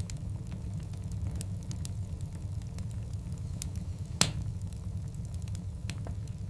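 Large wood logs burning in a fireplace: a steady low rumble of the fire, with scattered sharp crackles and one loud pop about four seconds in.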